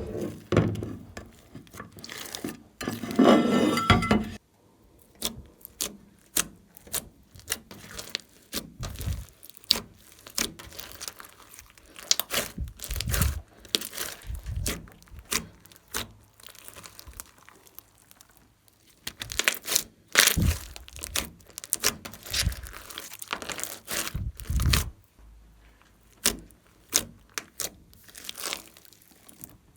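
Glossy slime being squished, pressed and stretched by hand, with many sticky clicks and air-bubble pops in irregular runs. About three seconds in there is a longer pitched squelch.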